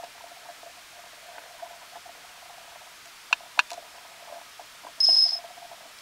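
Fly-tying tools and materials handled at the vise: two sharp clicks a little past halfway, then a brief high squeak about five seconds in, the loudest sound, over a faint steady hum.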